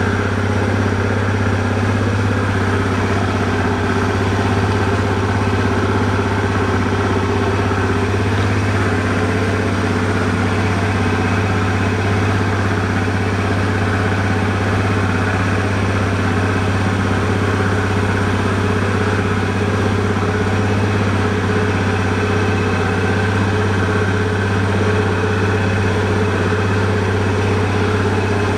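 Suzuki Address V50 scooter's 49cc fuel-injected engine idling steadily, an even hum with no revving.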